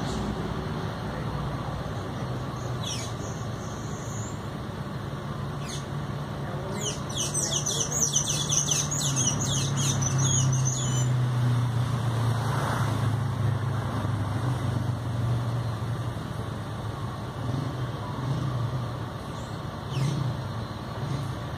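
A quick run of high, thin bird chirps lasting about four seconds, starting about a third of the way in, over a steady low background rumble. A few faint clicks are scattered through the rest.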